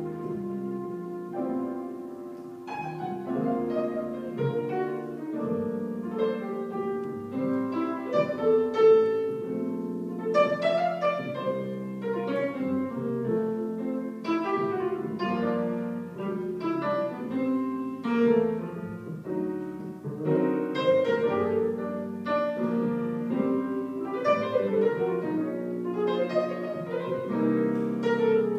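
Jazz ballad played on grand piano with double bass accompaniment, the piano carrying a dense run of chords and melodic lines over the bass notes.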